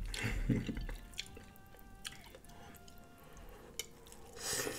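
Fingers dipping a piece of corn on the cob into a bowl of melted garlic butter sauce, with the sauce dripping, then a bite into the buttered corn near the end.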